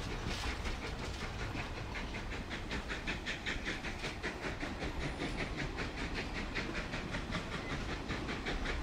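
A train running, a steady hissing clatter with a fast, even beat.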